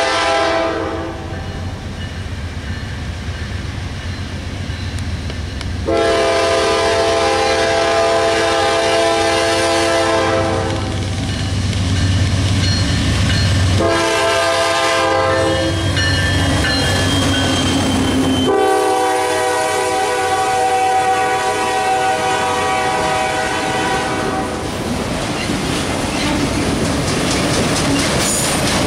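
Norfolk Southern GE Dash 9-40CW diesel locomotive sounding its air horn in a long-long-short-long grade-crossing pattern as it passes, its engine rumbling loudest in the middle. Autorack freight cars then roll by with a steady clickety-clack of wheels and faint wheel squeal.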